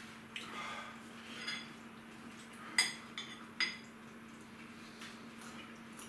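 A metal spoon clinking against a bowl several times, with the sharpest clinks near the middle. A steady low hum runs underneath.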